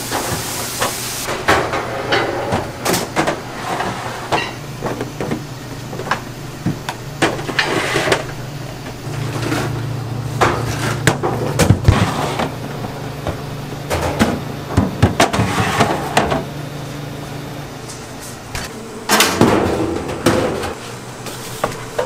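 Kitchen work sounds: repeated knocks and clatter of tools, dishes and containers over a steady low hum from kitchen equipment, the hum fading out near the end.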